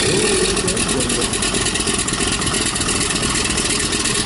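Old aircraft piston engine running steadily, a dense, even mechanical noise with rapid, regular firing pulses.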